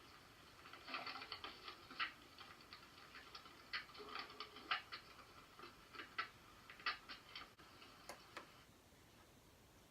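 Recording of a pet rat sneezing: quick, irregular, faint ticks and clicks that stop near the end.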